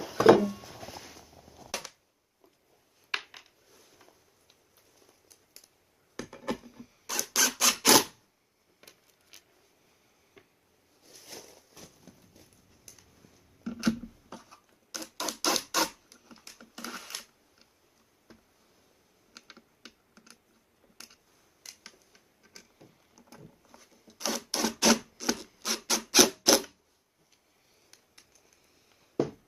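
Hand tools and hardware being worked while an armrest is bolted onto a metal center console plate: three bursts of quick, evenly spaced clicks, about a second or two each, with light scraping and handling noise between.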